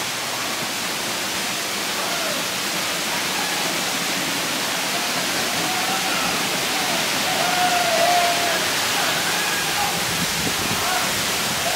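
Small rocky stream cascading over boulders, a steady rush of white water.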